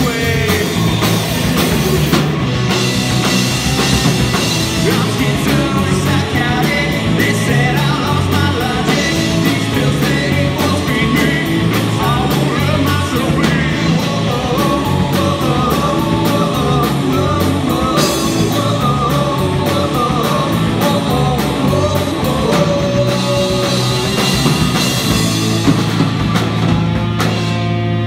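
Live rock band playing loud, with electric guitar, bass guitar and a Yamaha drum kit. Near the end the drums stop and a final chord is left ringing.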